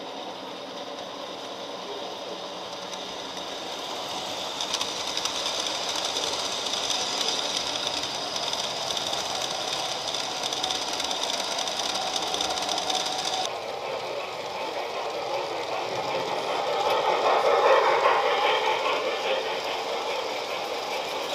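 Three-rail model trains running on the track: a steady whir and rattle of wheels and motors, swelling louder as a train passes close about three-quarters of the way in.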